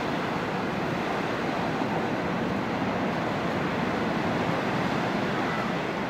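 Steady wash of Pacific Ocean surf breaking on the beach.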